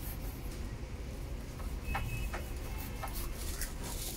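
A few light clicks and taps of a carving knife against a cutting board as a roast Peking duck is carved, over a steady low hum.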